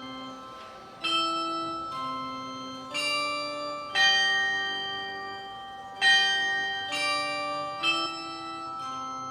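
Large grandfather clock chiming the hour: bell tones struck one after another in a tune, about one note a second, each ringing on and slowly fading under the next.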